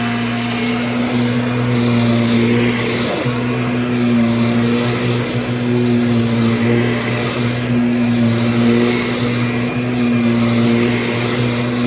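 Kirby Diamond Edition upright vacuum cleaner running on high speed: a steady motor hum and whine with airflow hiss, with a small knock about three seconds in.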